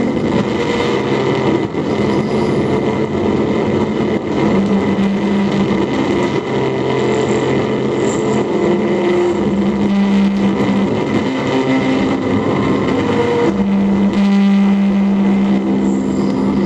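Live electronic noise music: a loud, dense wall of noise with held droning tones layered in it. A strong low drone swells in and out in stretches, the longest near the end.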